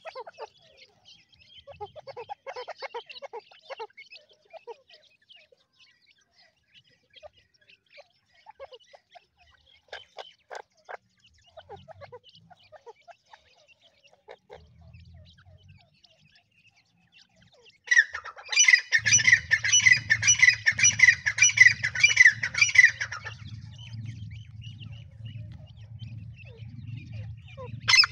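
Partridge chicks peeping softly and sparsely, with a few short ticks. About eighteen seconds in comes a loud run of rapid, repeated bird calls lasting about five seconds, and a low steady hum starts beneath it. Another loud call follows at the very end.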